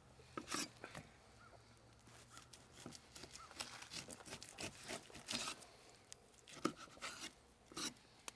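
A knife cutting through a bone-in beef rib roast on a plastic cutting board: faint scraping and tearing of meat, with scattered soft clicks as the blade works along the bones.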